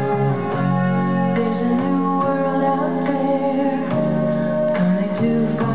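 Music: a song with keyboard accompaniment and a voice singing.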